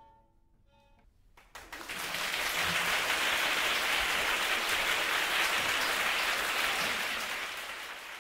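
The last notes of a violin and piano piece fade out, and about a second and a half in, audience applause breaks out and carries on, thinning slightly near the end.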